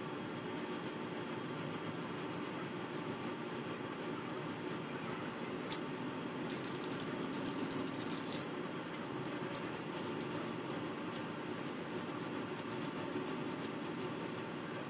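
Faint scratching and light clicking, many small irregular ticks, from hands working on a plastic model hull as a white base coat goes on, over a steady low room hum.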